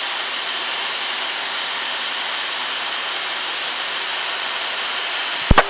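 Steady rushing noise of air flowing past a Boeing 737-800's flight deck in flight, even and hiss-like with little bass. A couple of sharp clicks sound near the end.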